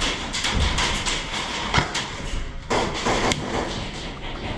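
Irregular sharp clicks and knocks over a noisy background, with a couple of louder cracks partway through.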